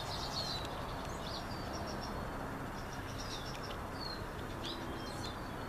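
Small birds chirping now and then, short high notes, some slurring downward, over a steady outdoor background hiss.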